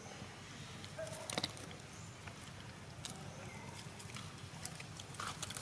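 Faint, brief squeaks of a monkey among scattered small clicks and knocks, over a steady low hum.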